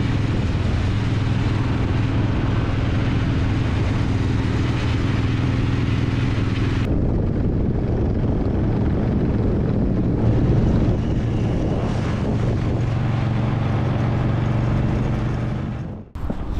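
Motorcycle engines running steadily at cruising speed with wind and road rush. The sound changes abruptly about seven seconds in, when it switches from a Royal Enfield twin to a Harley-Davidson V-twin heard from the rider's seat, and it fades out near the end.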